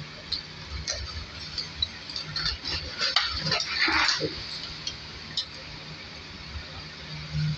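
Metal fork and spoon clinking and scraping against a ceramic plate as food is cut and picked up, in scattered light clicks, with a brief louder noise about four seconds in.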